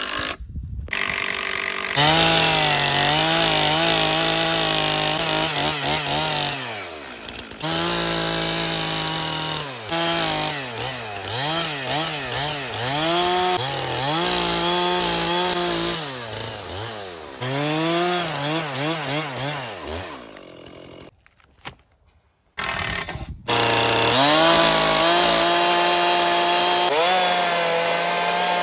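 Two-stroke chainsaw running at full throttle, ripping lengthwise through a log in a chainsaw mill attachment. The engine pitch sags under load and recovers several times. The sound cuts out for a second or two about three quarters of the way through, then returns at full speed.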